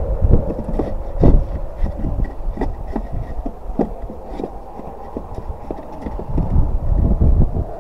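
Loose timber boards knocking and clattering against each other and against the wooden sides of a planter box as they are handled and set into its bottom: a dozen or so irregular wooden knocks over a low rumble.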